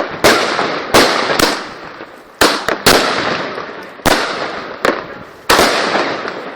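Jigsaw Blazing Skull firework cake firing shot after shot: about a dozen sharp bangs at uneven intervals, each trailing off in a fading crackling hiss.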